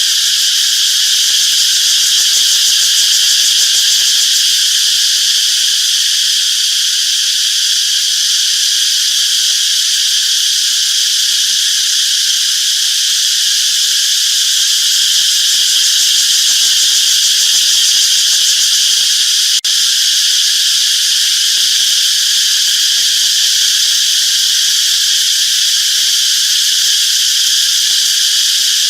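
A steady chorus of insects singing: a loud, continuous, high-pitched buzzing drone with no pauses, briefly broken by a short click about two-thirds of the way through.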